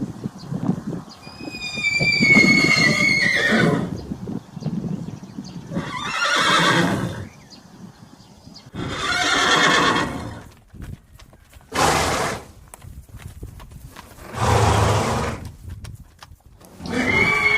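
A horse whinnying: a long, high neigh that falls in pitch at its end, followed by several noisy, breath-like bursts a few seconds apart, with scattered clicks between them, and another whinny starting near the end.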